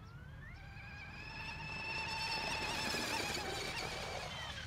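Radio-controlled L3 hydroplane speed boat on a timed high-speed run: its motor whines high and rises in pitch and loudness, is loudest about three seconds in, then drops in pitch as it passes.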